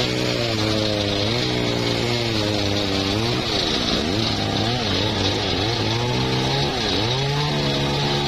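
Homemade engine-driven circular sawmill running and ripping a slab off an old mahogany log. It is a steady mechanical drone whose pitch dips and recovers several times in the middle as the blade bites into the wood.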